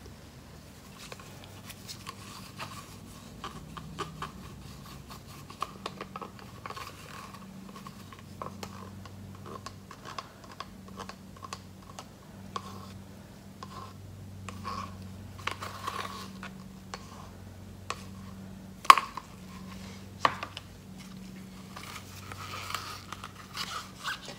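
Thick acrylic paint being scraped out of a small plastic cup into a clear plastic cup with a stir stick: a run of small, irregular scrapes, ticks and plastic clicks, with one sharper knock about three-quarters of the way through.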